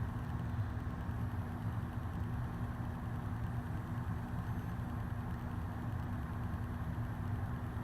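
Casablanca Broadway Limited ceiling fan running steadily at almost high speed: a constant motor hum under the rush of air from the blades.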